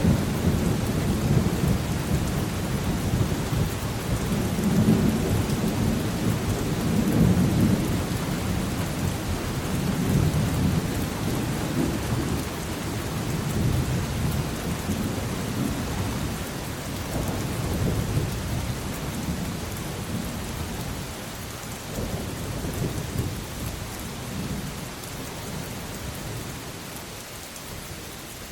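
Steady rain with rolling thunder rumbling in several swells, the thunder dying away and the whole sound gradually fading toward the end.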